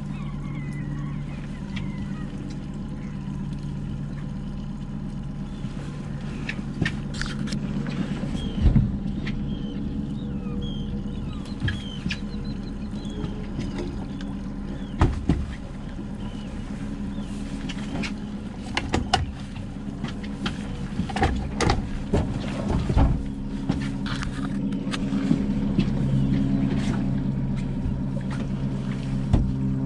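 Boat outboard motor running steadily at trolling speed, a constant low hum, with occasional sharp knocks scattered through the middle.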